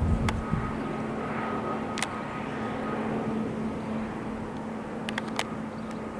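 Jet noise from an Airbus A320neo's Pratt & Whitney PW1100G geared turbofans as the airliner descends overhead on approach: a steady broad rumble with a faint hum that slowly fades as the jet moves away. Wind buffets the microphone at the start, and there are a few short clicks.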